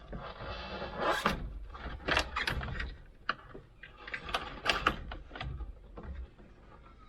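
Irregular clicks, knocks and scraping as parts and tools are handled while the tractor cab's interior and wiring are pulled out, with a low rumble underneath.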